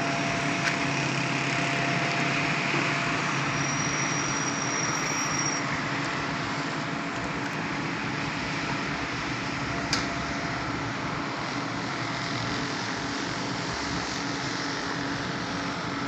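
Concrete pump truck running steadily, its engine and hydraulic pump giving a constant hum with a broad mechanical noise over it. A sharp click stands out about ten seconds in.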